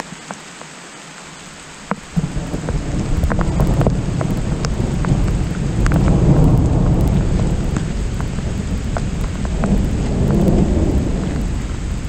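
Heavy rain in a thunderstorm, with scattered drops tapping sharply on the camera. About two seconds in, a loud deep rumble of thunder sets in and swells twice.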